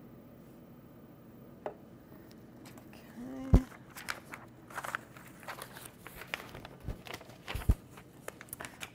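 Quiet room with scattered clicks, knocks and rustling, and one louder thump about three and a half seconds in.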